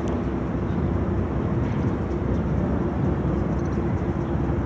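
Tour boat's engine running steadily: a constant low rumble with a steady hum, unchanging throughout.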